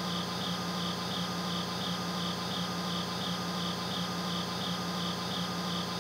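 Insects chirping in a steady pulsing rhythm, about three pulses a second, over a steady low hum.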